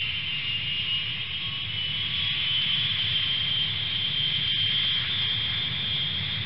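Jet engines of F-4 Phantom II fighters running on the runway: a steady rushing noise with a high, even whine over it, from their J79 turbojets.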